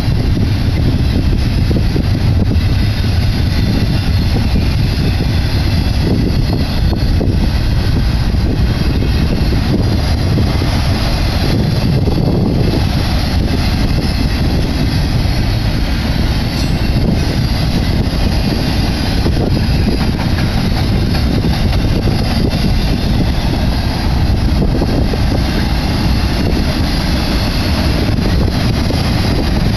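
BNSF double-stack intermodal freight train rolling past close by: the container well cars' steel wheels make a loud, steady rumble on the rails.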